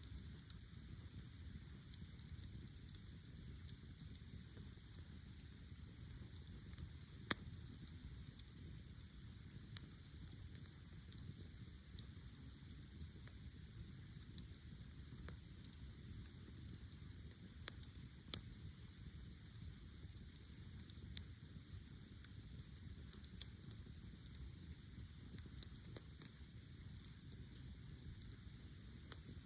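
A steady, high-pitched chorus of crickets on a warm summer night, with occasional sharp crackles from a campfire.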